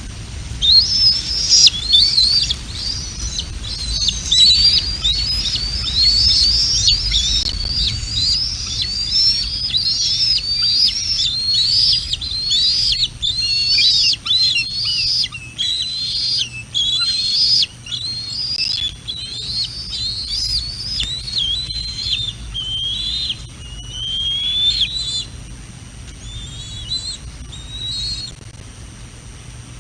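Bald eagle giving a long series of high, repeated call notes, a little more than one a second, that thin out and weaken over the last few seconds. Wind rumbles on the microphone underneath.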